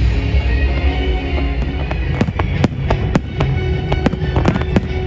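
Fireworks display: a rapid series of sharp bangs from shells bursting, coming thicker from about two seconds in, with music playing alongside.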